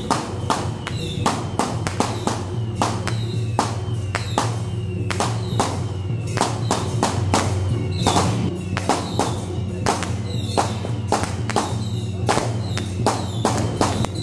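Temple procession percussion playing a steady, fast beat of sharp drum and gong or cymbal strikes, about three to four a second, with a steady low hum underneath.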